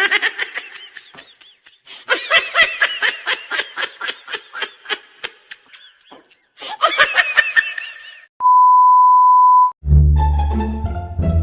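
High-pitched, sped-up laughter sound effect in quick repeated bursts, then a single steady censor bleep lasting about a second and a half. Plucked-string comedy music starts right after it.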